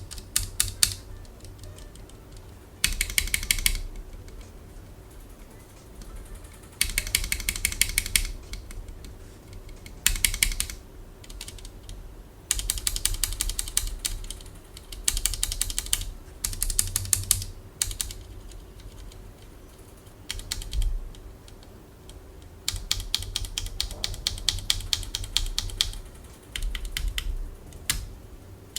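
Typing on a Leopold FC660M compact mechanical keyboard: quick runs of key clacks in bursts of one to two seconds, with short pauses between them.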